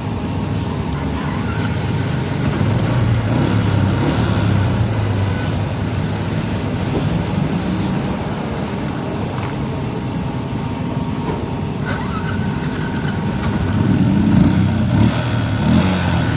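Yamaha Jupiter MX motorcycle's single-cylinder four-stroke engine running steadily, a little louder for a moment near the end.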